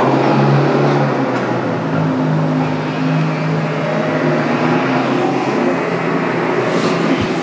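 A small electric motor running with a steady low hum under a rough, noisy texture.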